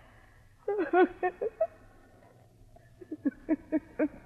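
A woman sobbing: a wavering, falling cry about a second in, then a run of short, catching sobs near the end, over a low steady hum.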